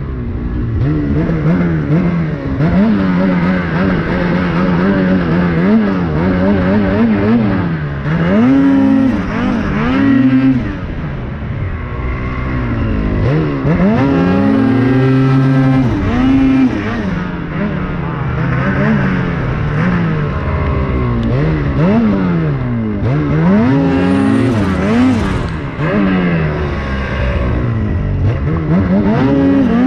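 Turbocharged two-stroke snowmobile engine (Ski-Doo 850 E-TEC Turbo R) being ridden. Its pitch rises and falls again and again as the throttle is opened and let off, with several hard pulls to high revs.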